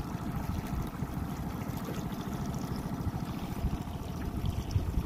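Boat's outboard motor running steadily under way over choppy lake water, with water rushing past the hull and wind buffeting the microphone.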